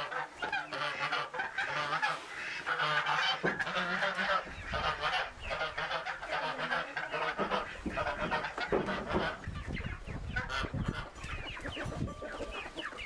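A flock of farm poultry calling, many birds overlapping in a continuous chorus. Low thuds and rumble join in from about four seconds in.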